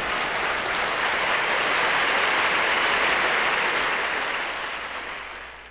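Audience applause from a live concert recording, played back from a mono vinyl LP; the applause fades out near the end.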